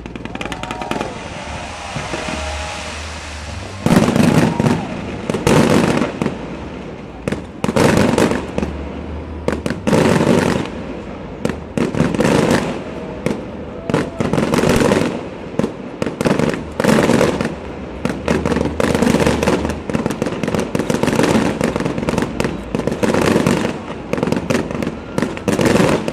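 Fireworks display going off: a rushing hiss for the first few seconds, then from about four seconds in a long, dense barrage of loud bangs and crackles, coming in clusters every second or two.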